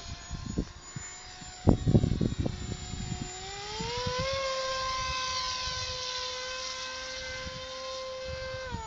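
Electric motor and propeller of a Pelikan Beta 1400 RC motor glider whining steadily in flight, the pitch rising about four seconds in as the motor speeds up, holding, then dropping again right at the end. Wind buffets the microphone in gusts around two seconds in, the loudest sound.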